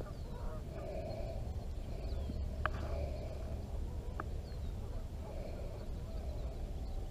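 A short animal call repeating roughly every two seconds over a steady low rumble of wind on the microphone, with two brief clicks near the middle.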